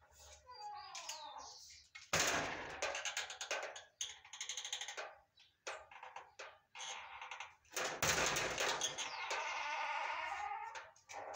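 Paper masking tape pulled off the roll in two long rasping rips, about two seconds in and again about eight seconds in, between smaller scratches of tape being torn and pressed onto corrugated cardboard. A short wavering, bleat-like squeal comes near the start and again near the end.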